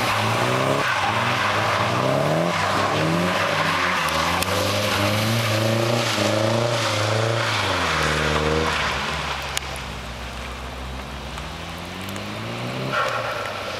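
Nissan 240SX engine revving up and down over and over while drifting, over the hiss of tyres and spray on wet tarmac. About eight seconds in the revs fall away and it runs quieter, then picks up again near the end.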